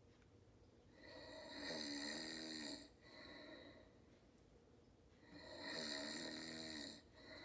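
A person snoring loudly: two long, rattling snores, each followed by a short, softer breath out.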